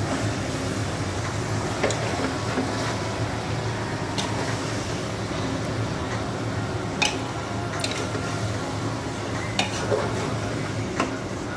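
A steel spoon stirring raw mutton pieces and spices in an aluminium pressure cooker, with the spoon knocking sharply against the pot's side about six times, over a steady low hum.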